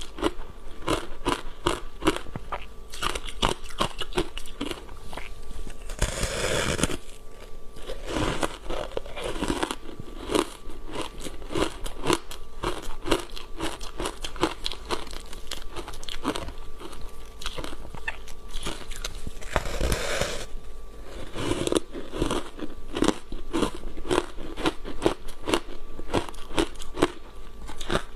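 Mouthful of crunchy foam ice coated in matcha powder being chewed, a fast, uneven run of sharp cracks and crunches. Two longer, louder bursts come about six seconds in and near twenty seconds.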